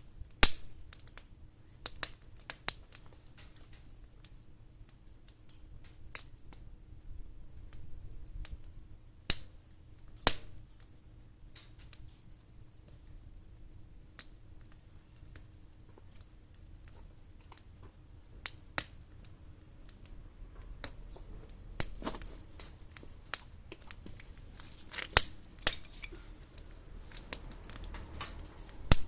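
Firewood burning in a fire pit, crackling with irregular sharp pops and snaps.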